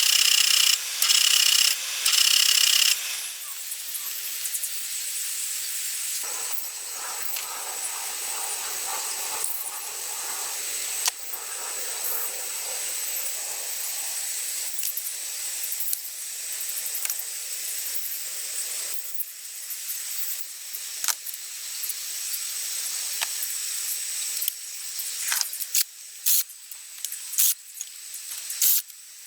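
Rough rubbing or sanding strokes in quick succession for the first few seconds, then a steady hiss with scattered clicks and taps from hand work on a car.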